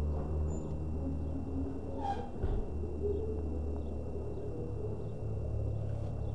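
Steady low rumble with faint, short whines and squeaks from six-week-old Kuvasz puppies, and one brief sharper sound about two seconds in.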